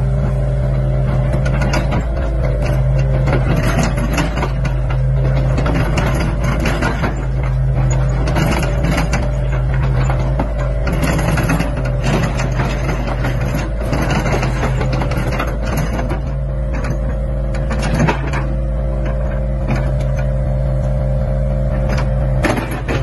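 Hitachi ZX75UR mini excavator's diesel engine running steadily under hydraulic load as the boom and arm push the bucket down to lift one track off the ground and then raise the boom. There is a brief knock about eighteen seconds in.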